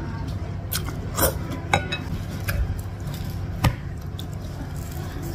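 Close-miked eating: noodles slurped and chewed, with a handful of sharp clicks from a wooden spoon against a ceramic soup bowl, over a steady low hum.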